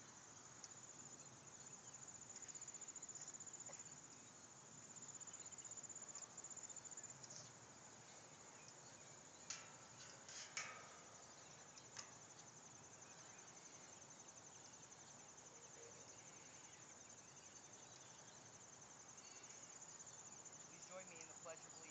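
Crickets chirring steadily in a high pitch, faint, with a few brief clicks about halfway through.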